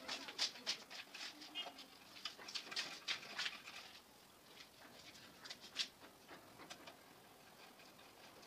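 Irregular light clicks and taps of hands and tools working the wiring and breakers of a miniature circuit breaker (MCB) panel board. They come thick and fast for the first few seconds, then thin out to a few scattered clicks.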